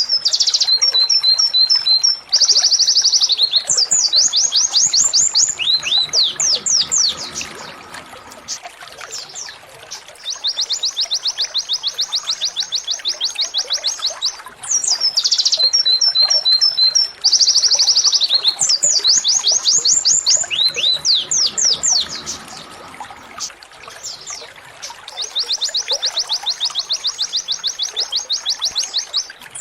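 Domestic canary singing a fast 'tembakan' song: rapid high trills and rattling rolls, broken by sweeping downward notes. The same run of phrases comes round again about halfway through, as in a looped recording.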